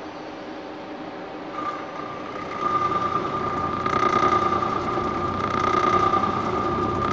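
CNC turn-mill lathe running with its spindle turning and the tool cutting metal. A steady high whine from the cut comes in about a second and a half in and grows louder about a second later.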